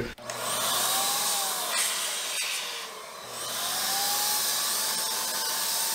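Wagner Flexio 590 electric paint sprayer running and spraying polyacrylic in a test spray: a steady rush of air with a faint motor whine. The sound dips briefly about three seconds in, then the whine rises again and holds.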